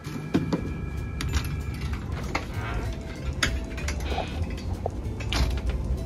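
Sharp metallic clicks and light rattles from a storm door's lever handle and latch being worked, a few scattered clicks over a steady low rumble.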